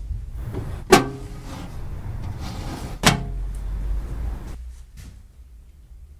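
Two sharp bangs of something being shut, about two seconds apart, each with a short ringing tail, over a low rumble that stops about four and a half seconds in, then a faint click.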